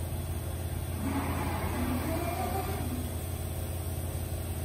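Komo Fusion 512 five-axis CNC router moving its spindle head, its axis drives giving a faint rising and falling whine over a steady low machine hum.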